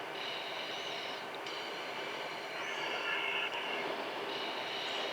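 Steady in-flight jet aircraft noise carried over the cockpit intercom: an even hiss with several steady high tones, slightly louder about three seconds in.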